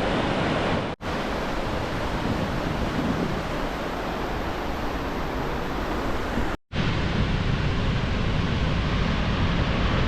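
Steady rushing of a waterfall on the Yellowstone River, a dense even roar. It cuts out briefly twice, once about a second in and again past the middle.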